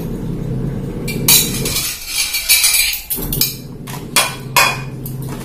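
Clinks and knocks of tableware being handled on a table, about half a dozen sharp sounds, over a steady low hum.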